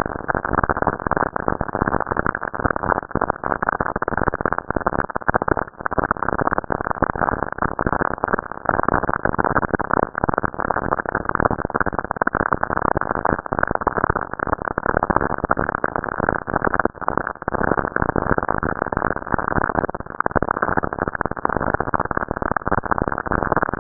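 Radio recording from space played as sound: a dense, unbroken crackle of static made of countless rapid clicks, muffled, with nothing above the low-middle range.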